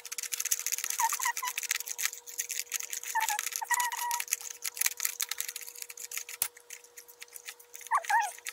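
Crinkling and rustling of a small Popin' Cookin' powder packet being handled and emptied into the plastic kit tray, a dense run of small crackles that thins out after about six seconds.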